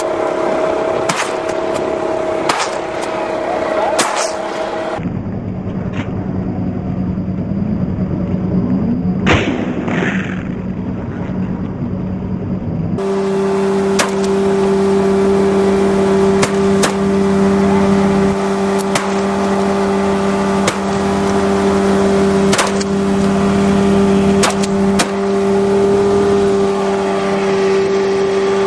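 A fast motorboat's engine running steadily at speed, its drone changing pitch abruptly twice, with sharp cracks every second or two over it.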